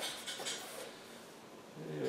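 Large chef's knife cutting through stacked, butter-brushed phyllo pastry sheets: a faint, crisp scraping in the first half-second that fades into low room noise.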